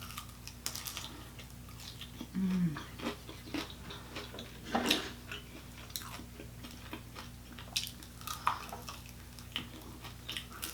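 Close-miked chewing and biting of a sauced, crispy chicken wing: irregular wet smacks and crunches, with one louder crunchy bite a little before five seconds in.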